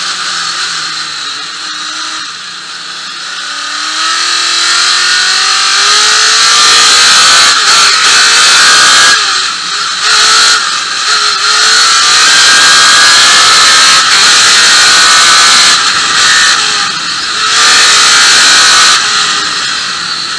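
Onboard sound of a #77 Chevrolet trophy truck's V8 engine accelerating hard, louder and rising in pitch over the first few seconds, then running flat out with several short dips in level. Loud wind and chassis noise fill the cab.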